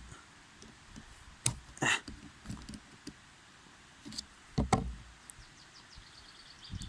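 Multitools being handled: a Victorinox Spirit used to pry a folded tool out of a Leatherman Wave, giving a few sharp clicks about a second and a half in and again near five seconds, with faint scraping between.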